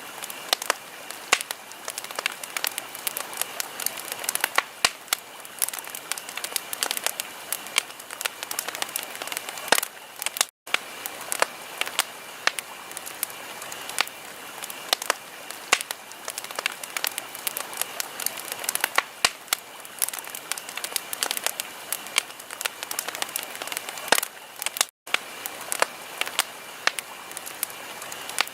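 Wood fire crackling: a steady hiss dotted with many sharp pops and snaps. It drops out for a split second twice, about ten seconds in and again near the end.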